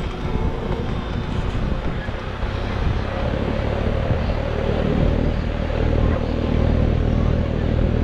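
Outdoor air-conditioner condensing unit running: a steady compressor hum under the rushing noise of its condenser fan, a little louder in the second half.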